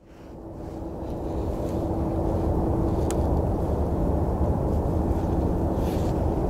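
Steady low rumble of distant airport ground machinery: de-icing trucks running around a parked airliner. It fades in over the first second or so, and a faint steady hum in it fades out about halfway.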